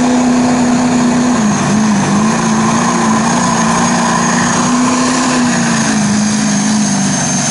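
Chevrolet Silverado's Duramax diesel V8 running at full throttle under heavy load as the pickup drags a pulling sled, its steady engine note dipping briefly twice, with a high turbocharger whistle above it.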